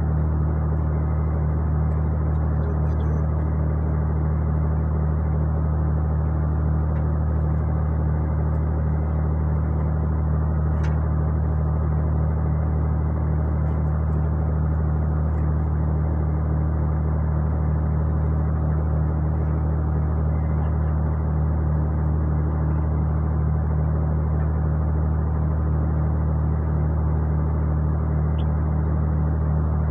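Steady low drone of a ship's engines and machinery: an unchanging deep hum that neither rises nor falls.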